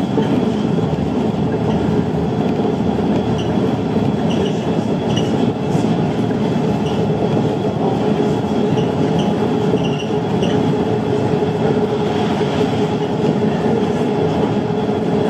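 Siemens Cityval rubber-tyred driverless metro train of Rennes line B running at speed on its track, heard from inside the car: a steady rumble of the running gear with a steady hum and light high squeaks now and then.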